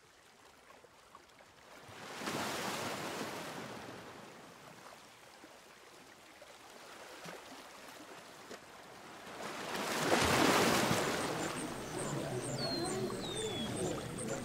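Waves washing in, two swells of surf about eight seconds apart, each rising and falling over a second or two. Birds chirp near the end.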